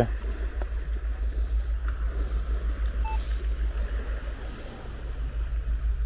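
Minelab Equinox 600 metal detector being switched on: a low, rapidly pulsing hum and one short beep about three seconds in.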